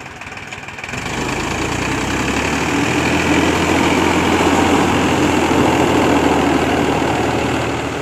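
Powertrac tractor's diesel engine running steadily as it tows a loaded water tanker, with the tyres crunching over loose crushed stone. The engine gets louder about a second in.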